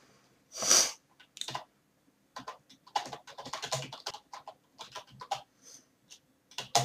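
Typing on a computer keyboard: uneven bursts of keystroke clicks, with a louder short breathy hiss about a second in.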